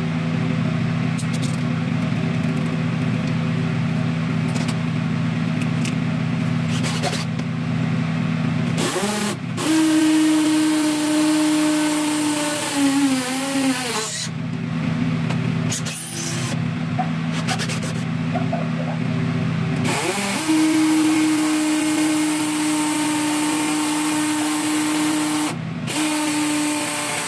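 Power drill running in two long stretches, each spinning up with a rising whine, then a steady tone.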